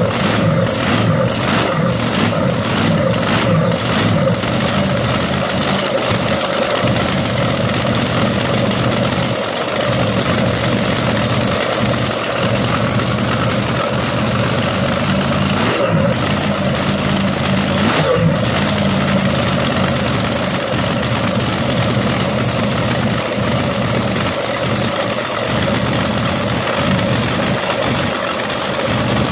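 A 540-cubic-inch supercharged alcohol drag-boat engine running loud and steady while it is being tuned. During the first few seconds it pulses about twice a second, and it changes briefly twice in the middle.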